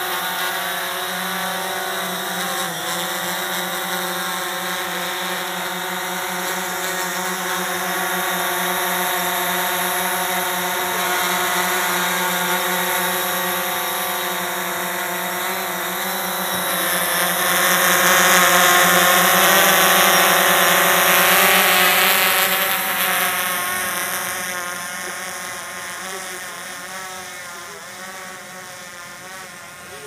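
Quadcopter camera drone's four motors and propellers buzzing steadily with several pitched tones as it lifts off and hovers. It gets loudest a little past halfway, then fades as the drone climbs away.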